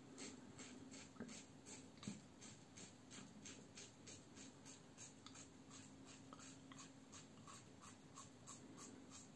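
Faint short scraping strokes of a Muhle R89 double-edge safety razor with a Treet Platinum blade cutting through leftover stubble on the chin, about three strokes a second in an even rhythm.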